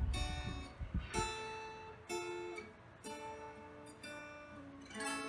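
Acoustic guitar playing a slow intro, a chord picked about once a second and left to ring. For the first second a rough low rumble, typical of fan wind buffeting the microphone, lies under the guitar and then stops.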